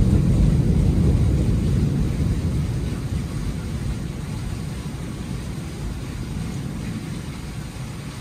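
Thunder rolling: a low rumble, loudest at the start and slowly fading, over steady rain.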